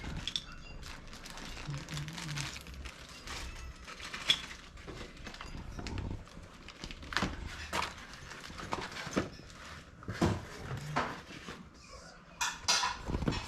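Scattered clicks, taps and light knocks of small bicycle parts and packaging being handled and set down, with a sharper knock about four seconds in and a quick run of clatters near the end.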